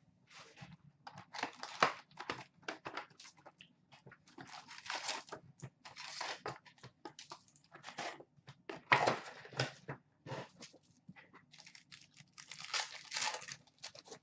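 Plastic shrink-wrap crinkling and tearing as it is stripped off a cardboard hockey card box, then the box opened and a stack of card packs pulled out, in irregular rustling bursts.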